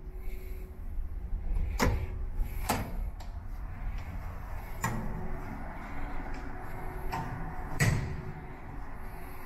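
A lever-handled door being pulled open and let close: four sharp clicks and knocks from the latch and door, the loudest near the end, over a steady low rumble.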